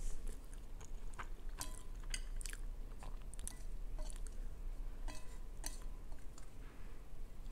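A person chewing a mouthful of soft instant noodles, with a string of small, sharp mouth clicks.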